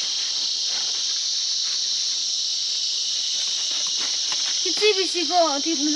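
A steady, high-pitched chorus of insects shrilling, with a few faint clicks. A person's voice comes in near the end.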